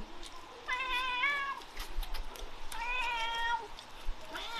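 A pet animal crying three times, with high, drawn-out calls about two seconds apart. The last call starts near the end.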